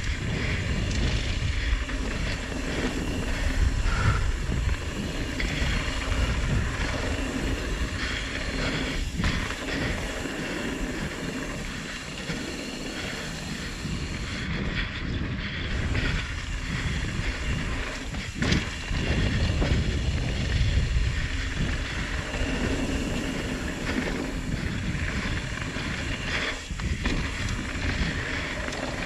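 Mountain bike riding down a dirt downhill trail: a steady rumble of wind and tyres with the bike rattling, and a few sharper knocks along the way.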